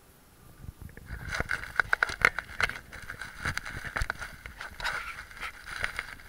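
Handling noise of a small action camera being moved inside an enclosure: a rapid, uneven run of clicks, scrapes and rustles against the log and loose substrate, starting about a second in.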